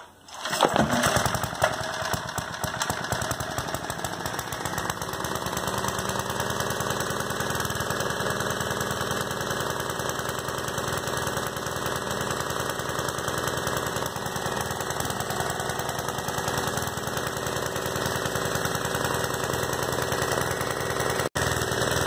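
Vintage Homelite generator's small single-cylinder engine catching about half a second in and then running steadily with a rapid, even firing beat. It runs on ignition points and condenser that have just been cleaned to restore spark.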